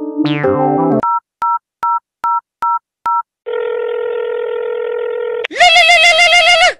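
Phone call sound effect: six short two-note keypad dialing beeps, then a steady line tone for about two seconds, then a loud warbling electronic ring that starts about five and a half seconds in.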